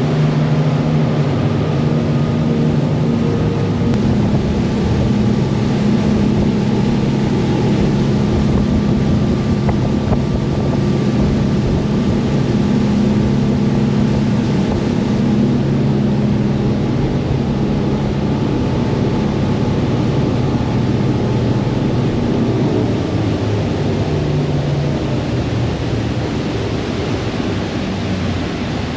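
A charter fishing boat's engine running steadily underway, with wind and water rushing past.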